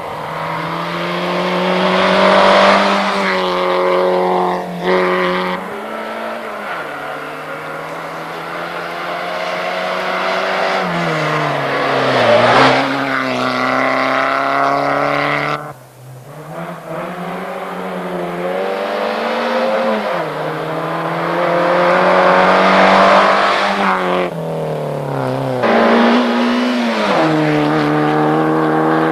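Rally car engines revving hard as the cars pass one after another on a tarmac stage. Each engine's pitch climbs and drops through the gear changes, sinks as the car slows for the bend, then rises again as it pulls away. The sound breaks off abruptly about halfway and a second car follows.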